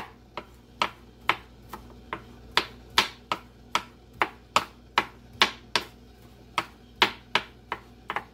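Chef's knife mincing garlic on a wooden cutting board: a steady run of sharp knocks of the blade on the board, about two a second.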